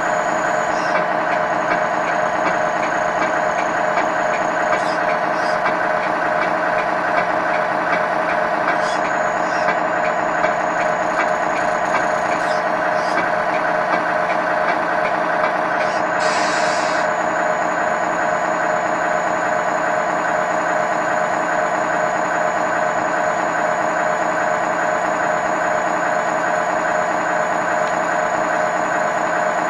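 Simulated diesel truck engine idling, played through the speaker of an RC semi truck's multi-function control unit: a steady, evenly pulsing idle.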